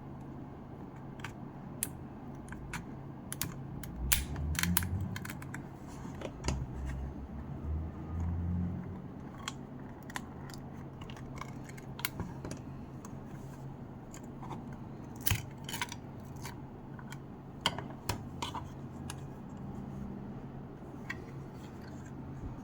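Scattered sharp clicks and taps from small plastic and metal parts of a Bose SoundLink Color 2 speaker being handled and worked apart, with a few heavier low thuds and a steady low hum underneath.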